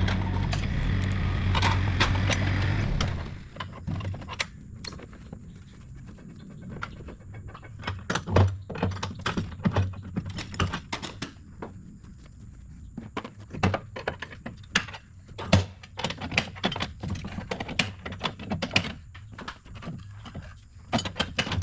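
An engine running steadily, cutting off about three seconds in, followed by scattered short knocks and clicks, a few to several a second, over a quiet background.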